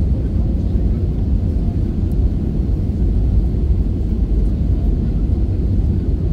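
Steady low rumble of jet-airliner cabin noise, engines and airflow heard from inside the cabin during the descent on approach to landing.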